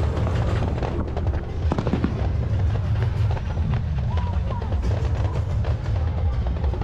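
Aerial fireworks barrage: shells launching and bursting in rapid succession, a continuous rumble of booms with crackling on top.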